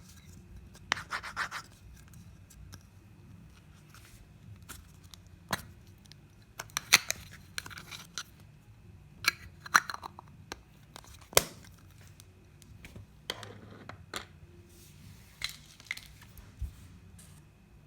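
Small toy kitchen pieces and their packaging being handled and unboxed: scattered sharp clicks and taps with short bursts of rubbing and scraping.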